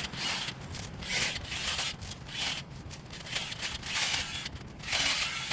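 Kress 20V cordless one-handed chainsaw cutting into hedge branches: a string of short, rasping bursts as the chain bites through the wood and the foliage rustles.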